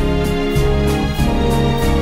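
Background music: sustained notes over a changing bass line, with a light steady beat ticking about four times a second.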